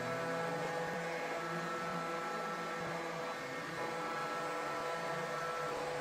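ILIFE V7s Pro robot vacuum running across a hard floor: a steady motor whir with a whine of several held tones.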